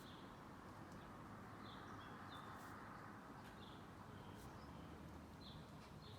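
Near silence with faint, short high chirps of a small bird, one every second or two.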